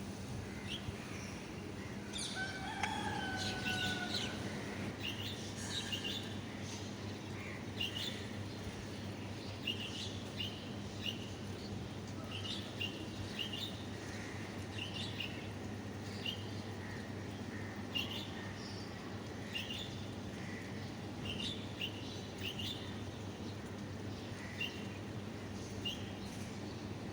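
Birds calling: short high chirps repeat every half second to second, with one longer drawn-out call about three seconds in, over a steady low hum.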